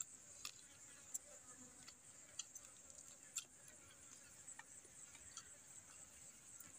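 Near silence: a faint, steady, high-pitched insect drone, with a few scattered faint clicks.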